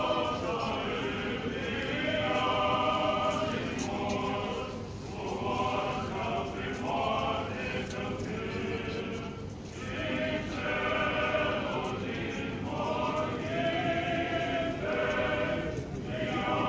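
Orthodox church choir singing a liturgical chant, several voices together in held phrases of a second or two with short breaks between them.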